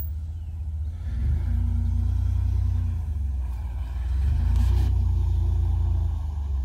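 Compact pickup truck's engine running with a low rumble, pulling harder twice as the truck drives across a mound of loose dirt.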